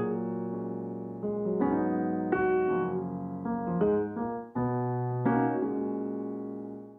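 Piano music: chords and single notes struck every second or so and left to ring out.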